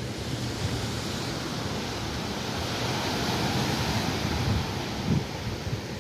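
Sea waves washing on the shore, a steady rush that swells about halfway through, with wind buffeting the microphone near the end.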